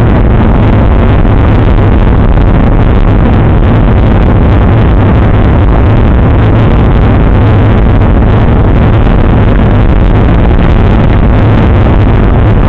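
Wind buffeting the microphone of a bicycle-mounted action camera at riding speed: a loud, steady rumble with no break, with tyre and road noise under it.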